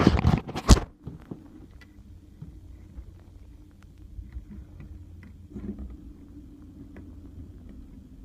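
Handling clatter as a phone is set down, in the first second, then faint scattered clicks of hands working over a low steady hum.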